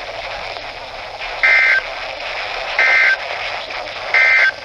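Three identical short screechy data bursts of a NOAA Weather Radio SAME (EAS) signal, each about a third of a second long and about a second apart, over steady radio hiss. Their shortness marks them as the end-of-message code closing the previous warning.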